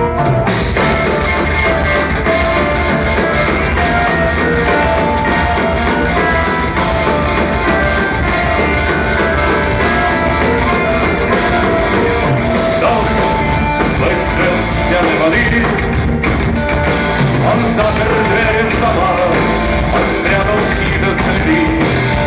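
Live rock band playing the instrumental opening of a song at full volume, with the drums coming in right at the start and a steady beat under sustained instrument lines.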